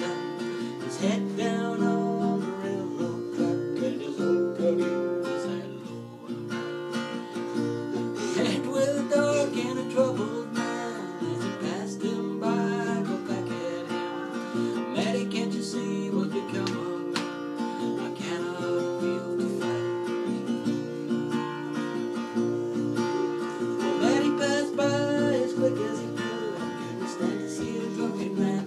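Acoustic guitar strummed in a steady rhythm, playing chords of a song.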